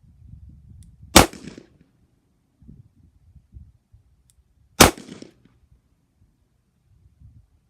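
Two shots from a Colt Agent .38 Special snub-nose revolver, about three and a half seconds apart, firing Hornady Critical Defense 90-grain FTX rounds.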